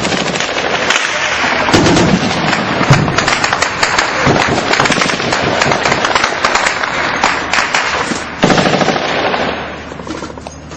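Airsoft guns firing in rapid full-auto rattles, the shots running on almost without a break and thinning out near the end.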